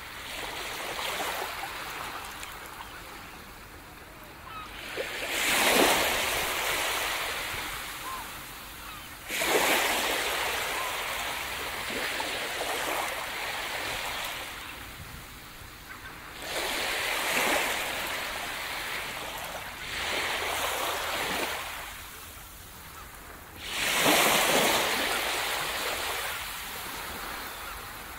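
Small waves breaking and washing up a sandy beach, each one rising to a hiss and draining away, a new wave every few seconds at an uneven pace.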